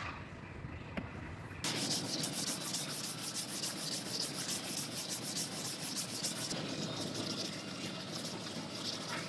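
Sanding cured body filler on a car roof panel, a steady rasping scrub that starts abruptly about two seconds in. Before it there is a quieter scrape of a plastic spreader on the filler.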